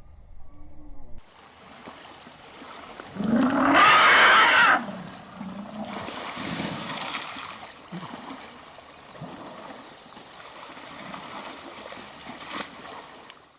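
An elephant gives one loud, harsh roaring call lasting about a second and a half, a few seconds in, followed by fainter calls and background noise.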